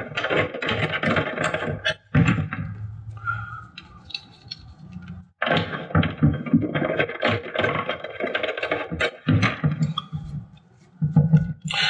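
Plastic clicking and rustling as PG7 cable glands are handled and pushed into the holes of a plastic enclosure. It comes in two busy stretches with a quieter spell in between.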